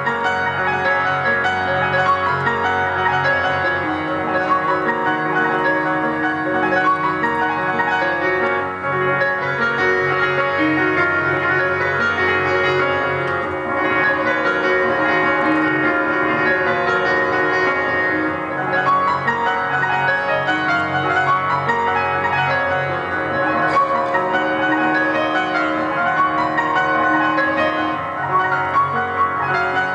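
Grand piano played live: a continuous flow of sustained chords over a steadily repeating figure in the low register.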